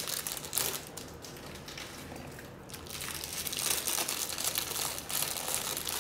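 Jewellery pouch rustling and crinkling as it is handled and opened, with many small crackles. It eases off about a second in, then picks up louder again.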